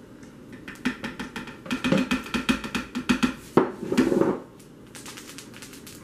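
A metal spoon knocking and scraping against a plastic blender jar as a spoonful of butter is worked off it into the jar. It comes as a quick run of taps and clatter, with a louder burst past the middle.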